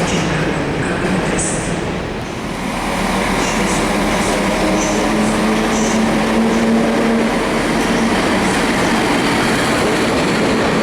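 A train moving through a railway station. There is steady rolling and running noise, a low hum through the middle, and a few brief high squeaks.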